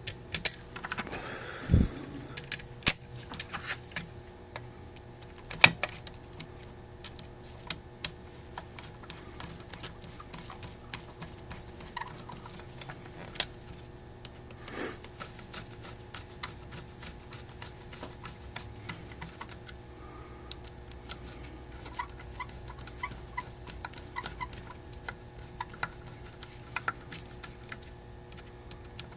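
Small screws and a screwdriver clicking and clinking as the screws holding the top of a Rochester 2G two-barrel carburetor to its float bowl are started, with scattered light clicks and a few sharper knocks.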